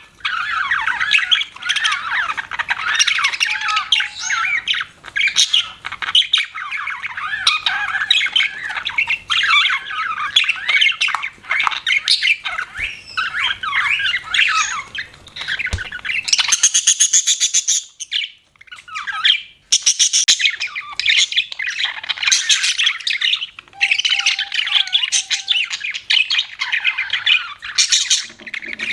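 Budgerigars chattering and warbling, a steady stream of fast chirps with harsher, higher squawks a little past the middle and a brief lull just after.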